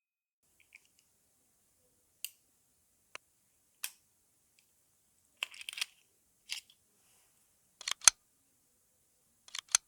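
Sharp metallic clicks and snaps from a restored padlock's mechanism being worked, about a dozen in irregular groups, the loudest pair about eight seconds in.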